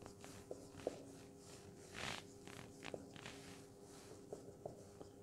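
Faint marker pen strokes on a whiteboard: a series of short scratches and squeaks, the most pronounced about two seconds in, over a faint steady hum.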